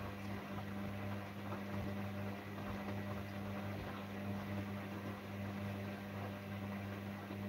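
Gorenje front-loading washing machine's motor humming steadily as it turns an overloaded drum of laundry, then cutting off suddenly with a click at the very end.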